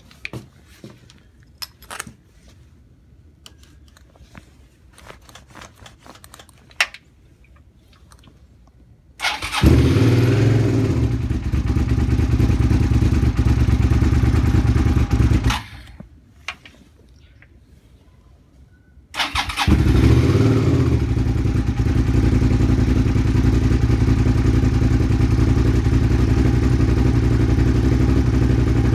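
Cold start of a carbureted 2002 Suzuki SV650's V-twin engine in freezing weather after sitting overnight. After a few faint clicks, the starter cranks about nine seconds in and the engine fires, runs about six seconds and stops. About four seconds later it is started again, catches at once and keeps running steadily.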